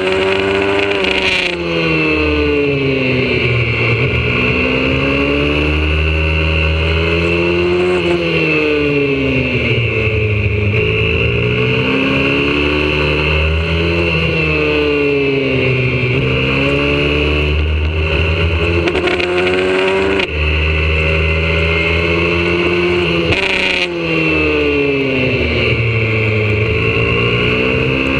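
Single-cylinder engine of a YCF 125cc four-stroke pit bike ridden hard on track, heard from a camera mounted on the bike. The revs climb, then drop away repeatedly as the rider shifts and slows for the corners, with brief breaks in the sound at the gear changes.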